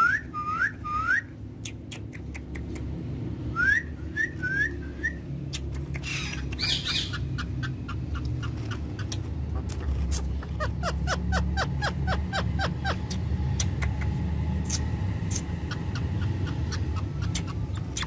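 Ringneck parakeet chirping softly: three quick rising chirps at the start and four more about four seconds in, then a fast run of repeated notes a little past the middle, with scattered sharp clicks over a steady low rumble.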